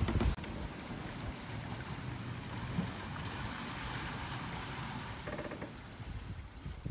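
Steady rush of water and wind around a sailboat under way at sea, with a couple of knocks at the very start and a brief tone about five seconds in, the rush fading near the end.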